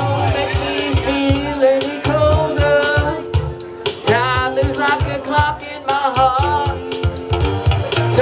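Pop song: a sung lead vocal with wavering, vibrato-like notes over bass and a steady drum beat.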